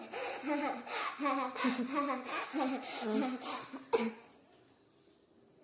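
A person laughing in a run of short bursts for nearly four seconds, followed by a single sharp click.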